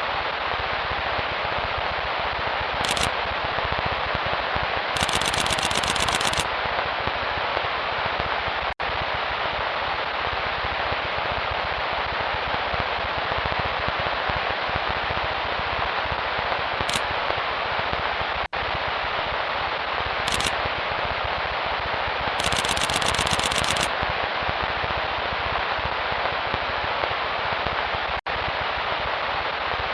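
Fireworks crackling in a dense, rapid, unbroken barrage, like machine-gun fire, with three brief dropouts about ten seconds apart and short bursts of high hiss that recur in the same order, as if the track is looped.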